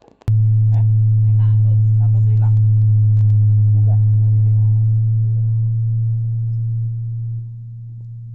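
Steady low test tone of about 100 Hz played through a large JBL rental PA speaker stack during a sound check. It switches on abruptly just after the start and steps down in loudness a few times in the second half.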